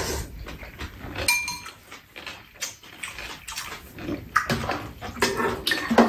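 Close-up eating sounds: soup slurped from spoons, chewing and lip smacks, with spoons and chopsticks clicking against ceramic bowls and a metal tray, one brief ring of metal on metal about a second in.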